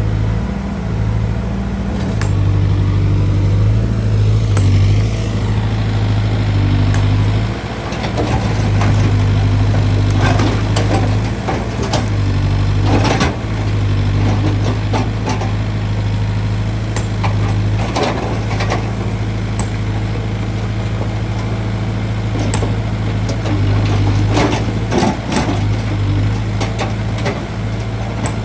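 Backhoe loader's diesel engine running steadily while digging, its hum swelling and easing, with repeated metallic clanks and knocks from the working bucket and arm.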